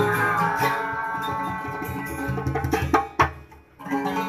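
Street band of two acoustic guitars and a homemade cylinder hand drum, with a singer holding a long note over the strummed chords and steady drum beats. About three seconds in a final hard stroke ends the song and the sound drops away, then a guitar strums briefly again near the end.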